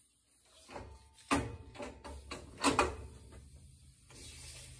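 Knocks and clunks of objects being handled, the loudest about a second in and again near the middle, with a low hum setting in after the first knock.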